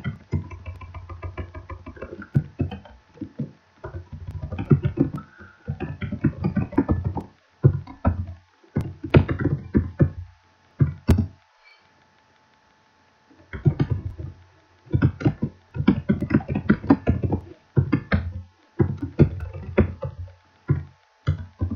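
Typing on a computer keyboard in quick irregular runs of keystrokes, each with a low thump. There is a pause of about two seconds near the middle.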